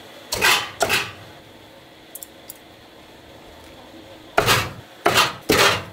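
Knife chopping through a whole roast chicken onto a chopping block: two hard chops near the start, a couple of faint taps in the middle, then three chops in quick succession near the end.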